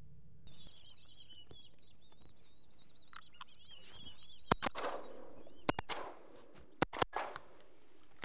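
A flock of black-bellied whistling ducks calling overhead with high, wavering whistles. From about four and a half seconds in, shotguns fire about six shots in quick pairs.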